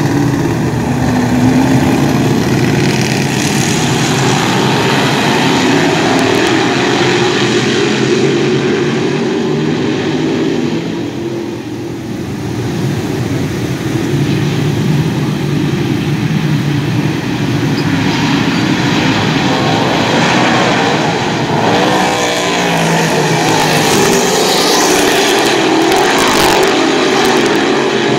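A pack of dirt modified race cars racing around a dirt oval, their engines loud and rising and falling in pitch as cars pass. The sound fades briefly near the middle as the pack moves away, then builds again.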